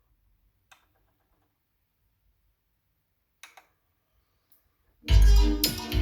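Near silence broken by two faint clicks, then music starts abruptly about five seconds in, loud and full with strong bass, in what fits a record being played on the linear tracking turntable.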